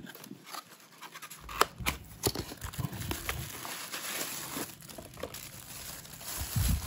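Handling noise from a thin cardboard box being opened, with scattered sharp clicks and rustles. Near the end, clear plastic wrapping crinkles as it is handled.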